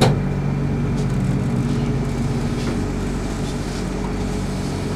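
Steady low hum with several held tones inside a stationary Mitsubishi Crystal Mover rubber-tyred LRT car, its onboard equipment running while the train stands still, with a single sharp click right at the start.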